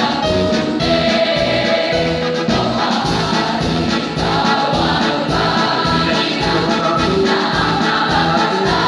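Large school choir singing in parts, many voices holding and moving between sustained notes together, picked up through a microphone.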